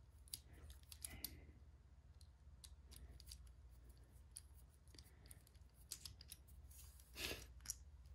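Faint, scattered small metallic clicks and ticks of a hex key turning a screw out of a hydraulic disc brake caliper's mounting bracket, with a brief louder handling noise about seven seconds in.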